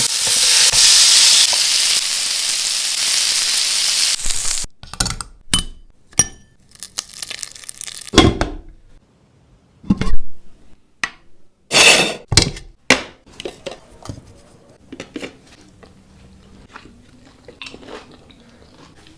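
A loud sizzling hiss that stops abruptly about four and a half seconds in. After it come scattered clinks and knocks of dishes and utensils.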